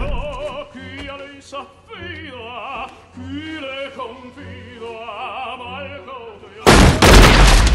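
Operatic singing with a wide vibrato over an orchestral accompaniment. About a second before the end, a sudden loud bang cuts in and lasts about a second.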